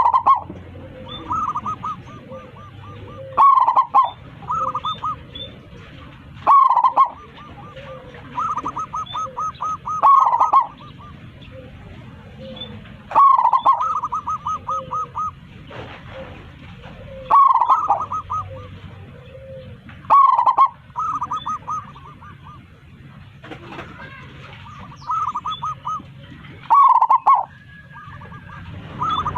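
Zebra dove (perkutut) singing: about nine cooing phrases, roughly every three seconds, each a loud opening note followed by a quick run of short coos.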